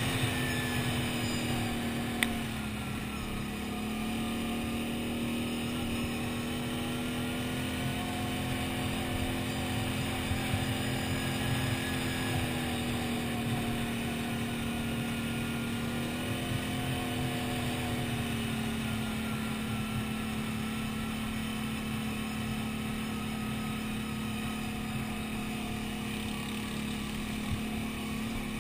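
Quad bike (ATV) engine running steadily under way, heard from the machine itself with low wind rumble. Its pitch drops about two seconds in as the rider eases off, rises briefly later and settles again, with one sharp knock about two seconds in.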